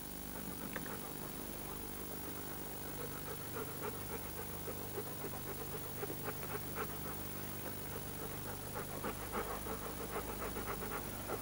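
A German Shepherd dog panting in quick, even breaths that grow more distinct after a few seconds, over a steady low hum.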